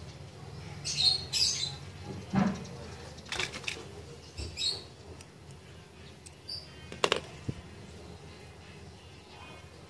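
Small clicks and taps from a push-type audio selector switch and its metal bracket being handled and taken apart, with a few short high chirps in between.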